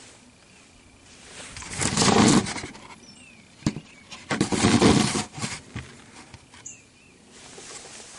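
Camera handling noise: two loud bursts of rustling and scraping on the microphone, about a second and a half in and again about four and a half seconds in, with a sharp click between them, as the camera is turned around and back.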